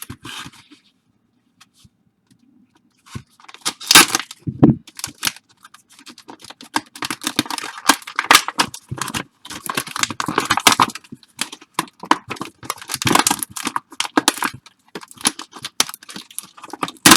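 Plastic wrappers of baseball card packs being torn open and crinkled by hand: after a quiet first few seconds, a dense run of irregular crackles and snaps.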